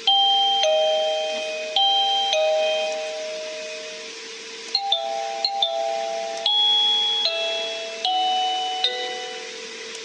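EKEN V5 plug-in wireless doorbell chime playing its electronic melodies: clear stepped tones in short two- and three-note phrases, fading slowly. A new tune starts about halfway, with a couple of clicks, as the chime is stepped through its selectable tunes.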